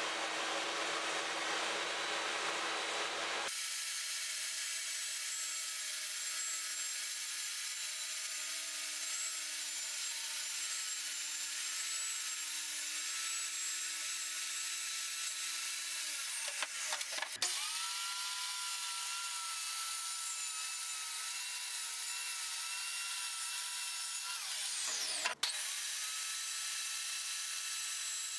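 Portable table saw running and ripping plywood: a steady motor whine with the hiss of the blade through the wood. Twice, a little past halfway and again near the end, the whine drops sharply in pitch and swings back up.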